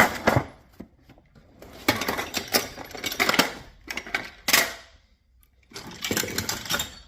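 Small tools and cases clattering and rattling in a toolbox drawer as they are picked up and moved about, in three spells of quick clicking separated by short pauses.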